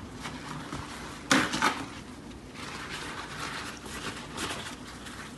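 Paper towels being handled on a wooden tabletop: a sharp clatter just over a second in, then lighter papery rustling.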